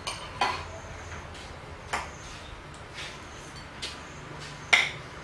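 Spoons clinking and scraping against ceramic bowls and plates as two people eat rice: about five separate clinks a second or so apart, the loudest near the end.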